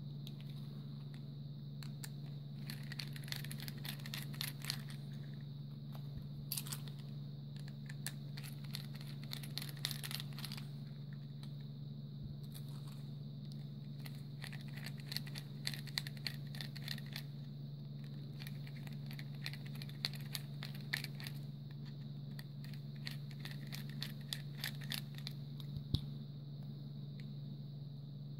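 Small clicks and scratchy scraping of a screwdriver working on a butane torch lighter's plastic housing as it is pried apart, coming in several short spells, over a steady low hum.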